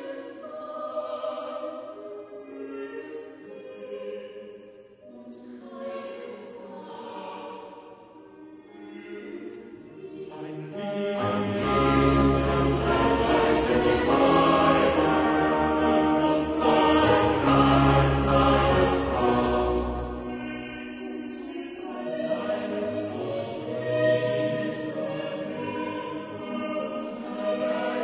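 Background choral music: a choir singing slow, held notes, swelling louder with deep low notes a little before the middle and easing back about two-thirds of the way through.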